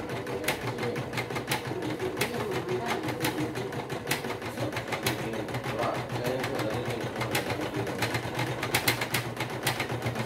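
Singer Quantum Stylist EM200 computerized embroidery machine stitching a design: a steady motor hum under the rapid, even chatter of the needle, with sharper clicks now and then.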